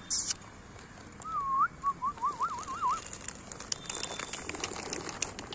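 A person whistling a short warbling call to summon puppies: a glide up, a brief break, then a rapid wavering up and down, lasting about two seconds from a little after a second in. Scattered light clicks follow.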